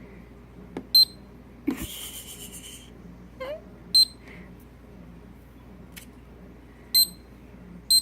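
Wallaby digital kitchen timer giving short single high beeps as its buttons are pressed, three of them about three seconds apart, with faint button clicks and a brief rustle of handling about two seconds in.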